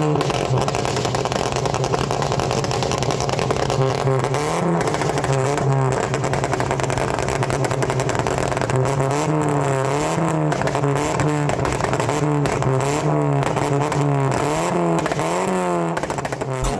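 Audi 80 2.0 engine revved repeatedly while standing, its pitch rising and falling about once a second from about four seconds in. The exhaust pops and crackles as the revs drop, from a pops-and-bangs (popcorn) tune that spits flames from the tailpipe.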